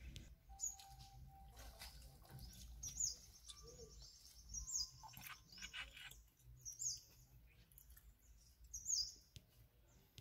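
Faint wild birds calling. One repeats a short, high call about every two seconds, and a few lower whistled notes come in between.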